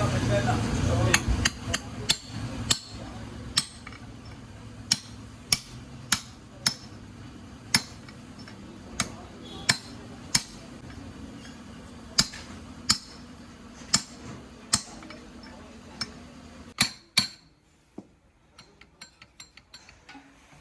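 Hammer striking metal, sharp blows coming irregularly about once a second over a low steady hum. About 17 seconds in the hum drops away, and a cluster of lighter clicks follows near the end.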